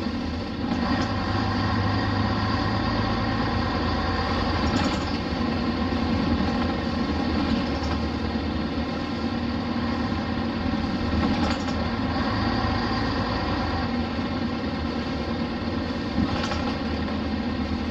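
Hino Blue Ribbon RC monocoque bus's diesel engine running steadily, heard from inside the passenger cabin, with a few light knocks over the engine note.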